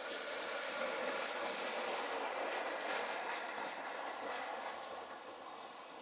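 Water rushing over and between broken concrete road slabs in a steady flow, louder for the first few seconds and easing a little near the end.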